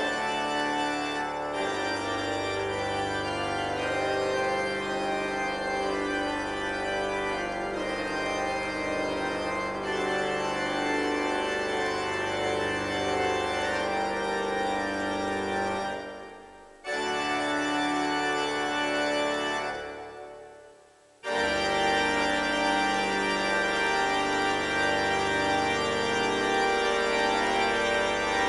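Church organ playing sustained, full chords. Twice, a little past halfway, the chord is released and the sound dies away before the next chord comes in suddenly.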